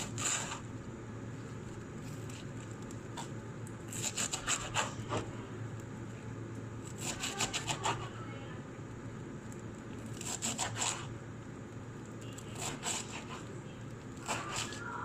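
Knife cutting fresh greens on a cutting board, in short runs of quick strokes separated by pauses of a couple of seconds.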